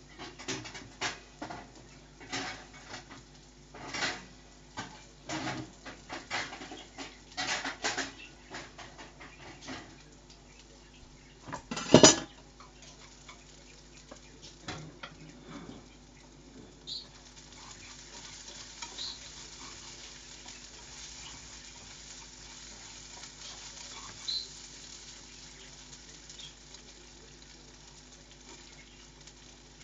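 Clinks and knocks like dishes and cutlery being handled, with one loud clank about twelve seconds in, then a steady hiss from about seventeen seconds.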